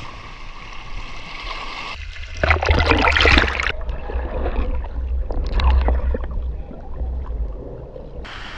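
Seawater sloshing and splashing around a cased GoPro as it is plunged into the surf: a loud splashy rush about two seconds in, then a muffled underwater rumble and gurgle of the wash while the camera is submerged, which opens up again near the end.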